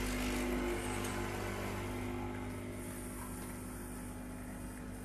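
Home espresso machine running with a steady mechanical hum, easing off slightly after about two seconds.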